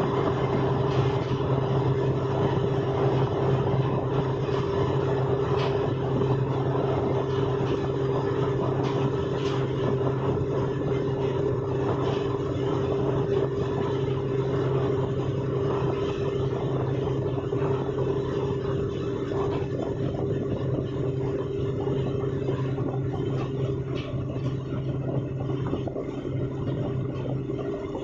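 Lake passenger boat's engine droning steadily while under way, a low hum with a second steady tone above it.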